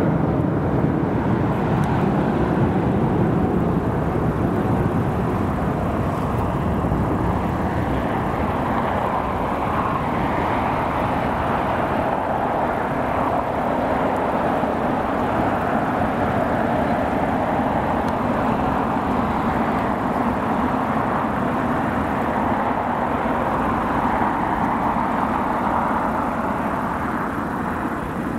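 Jet airliner engines, a continuous loud noise with no break that slowly shifts in pitch.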